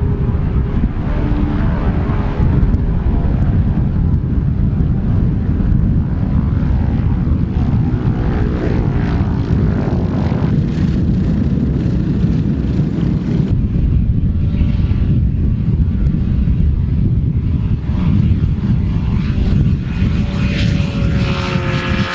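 Ultralight aircraft engines and propellers droning as the planes fly low past, with the engine pitch rising and falling. A heavy low rumble of wind on the microphone lies under them.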